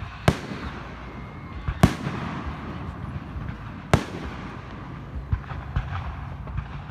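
Aerial firework shells bursting: three loud bangs, spaced about one and a half to two seconds apart, each with a rumbling echo, then a few smaller pops near the end.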